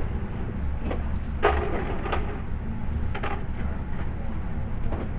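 Indoor firing range background: a steady low rumble with a few short, sharp, muffled reports, the strongest about a second and a half in, typical of other shooters firing in neighbouring lanes.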